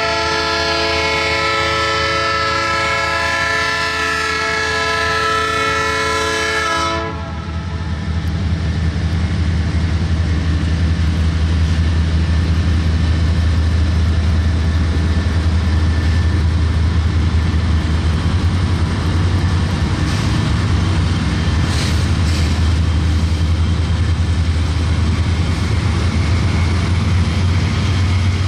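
Diesel freight locomotive's air horn sounding one long steady chord that cuts off about seven seconds in. Then the Canadian National diesel locomotives' engines rumble, growing louder as they pass, with a few sharp clicks near the end.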